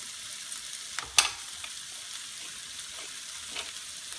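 Diced onions and bell peppers sizzling in oil in a frying pan, a steady hiss. A sharp clack about a second in and a fainter one near the end.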